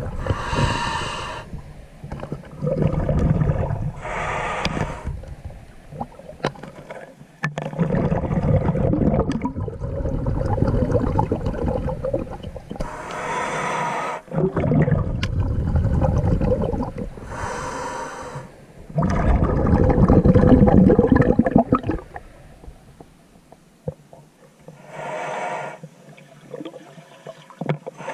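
A diver breathing underwater: repeated breaths with bubbling, one every few seconds, some short and hissing and some longer and rumbling.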